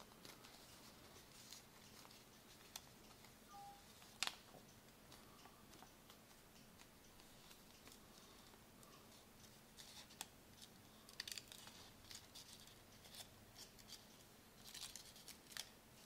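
Faint rustling and crinkling of a sheet of origami paper being folded and creased by hand, with a sharp click about four seconds in and bursts of crinkling later on.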